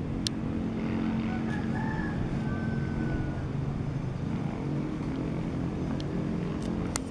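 Single-cylinder Kubota diesel engine of a Quick two-wheel tractor idling steadily just after starting. A rooster crows faintly in the background during the first half, and there are a couple of small clicks.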